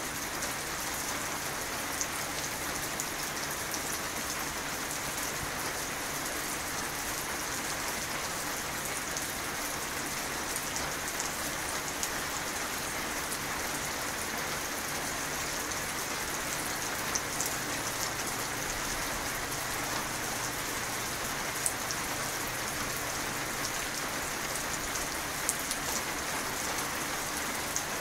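Steady rain falling, an even hiss with a few sharper drop clicks scattered through.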